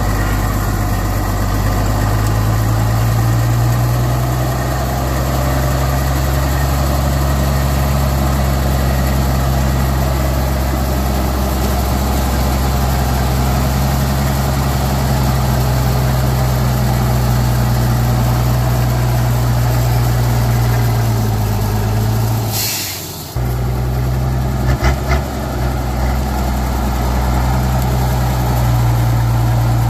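Vehicle engine running steadily at a low, even pitch. About 23 seconds in it dips briefly under a short hiss, with a couple of clicks just after, then runs on as before.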